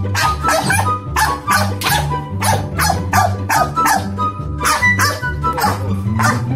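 A small dog barking in quick runs, about two or three barks a second with a short pause midway, over background music.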